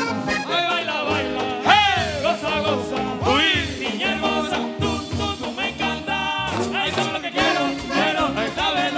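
A live band playing an up-tempo number, a button accordion leading over electric bass and hand drums, with a couple of swooping high phrases about two and three and a half seconds in.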